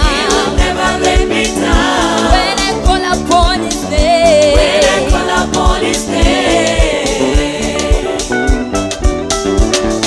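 Live gospel music: a woman lead singer and a choir singing together over a drum kit and bass guitar, with a steady drum beat.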